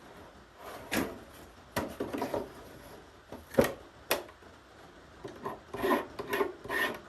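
A few wooden knocks as a piece is set in a shave horse's clamp, then from about halfway a run of rasping strokes of a blade shaving the wood, roughly two strokes a second.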